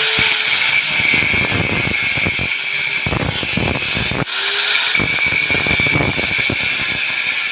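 Electric angle grinder grinding steel, with crackling where the disc bites the metal. It cuts out about four seconds in, then spins up again with a rising whine.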